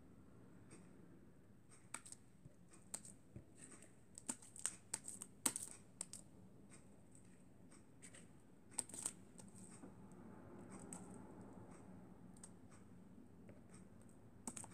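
Fluffy slime being stretched and pulled from a bowl by hand, making faint, irregular sticky clicks and crackles, busiest in the first half with a few sharper snaps.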